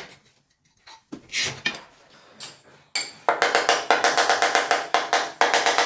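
Quiet at first with a few faint knocks, then, about three seconds in, music with a fast, even percussive beat over sustained notes starts and runs loud, with two short breaks.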